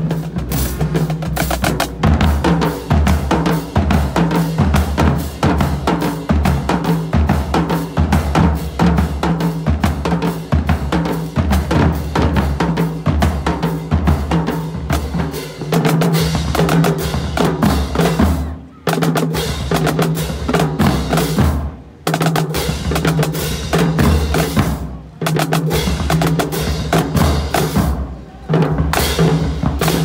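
Marching drumline playing a cadence: snare drums, tenor drums and tuned marching bass drums in a dense, driving rhythm. In the second half the whole line stops short together a few times, about every three seconds.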